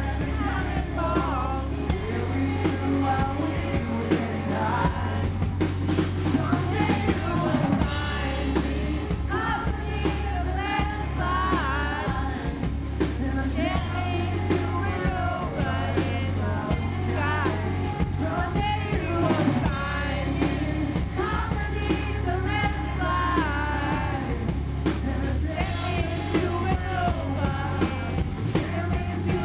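Live rock band playing, with a man singing lead over drums and electric guitar.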